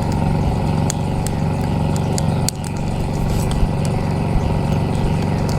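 An engine running steadily at a constant speed, with faint sharp ticks over it.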